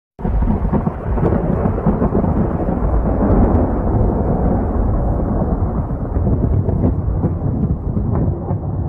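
Loud, continuous low rumbling noise that starts abruptly at the very beginning and carries on steadily, with a few faint crackles.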